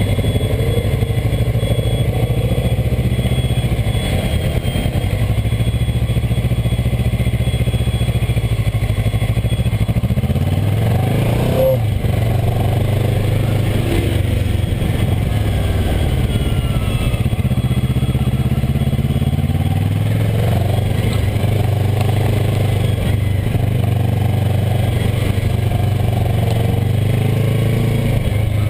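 Kawasaki ER-6n's parallel-twin engine running at low revs as the motorcycle rolls at walking pace, the revs rising and falling a little now and then.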